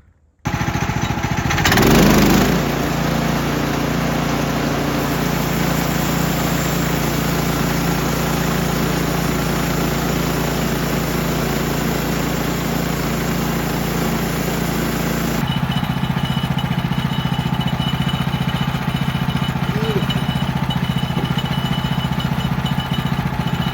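Woodland Mills HM130 Max portable band sawmill's gas engine running steadily at speed while the band blade saws through a hemlock log. There is a louder surge about two seconds in, and the sound changes abruptly about halfway through.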